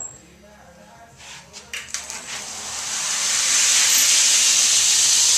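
A click and a few knocks, then a Wilmont belt grinder starting up about two and a half seconds in, its belt coming up to speed and then running with a steady loud hiss.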